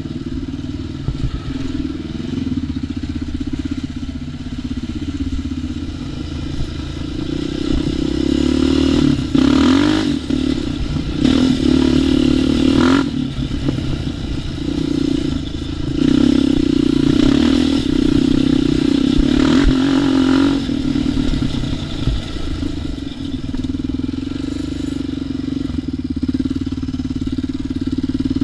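ATV engine running continuously under changing throttle, with louder surges of throttle in the middle and a few sharp knocks mixed in.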